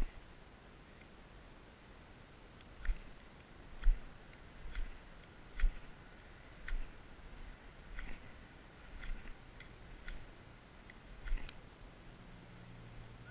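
Gerber fire steel (ferrocerium rod) struck with its striker over dry grass and bark tinder, about ten short scraping strikes roughly once a second starting about three seconds in.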